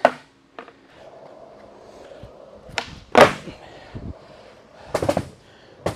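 Skateboard wheels rolling on a smooth concrete floor, broken by sharp wooden clacks of the board as flip tricks are popped and landed: one loud crack about three seconds in and a quick run of clacks about five seconds in.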